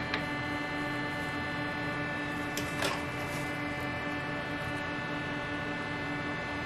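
Steady mechanical hum of kitchen equipment running, several fixed tones at an even level. A couple of light knocks at the start and a brief soft clatter about three seconds in.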